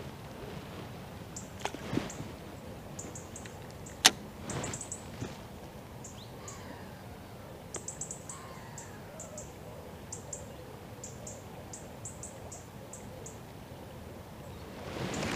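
Steady low background rush with many short, very high-pitched chirps from small birds in quick clusters, and one sharp click about four seconds in.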